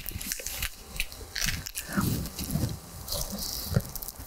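A person biting into and chewing a slice of crisp thin-crust pizza on a flour tortilla base, the crust crunching in a string of irregular crackles.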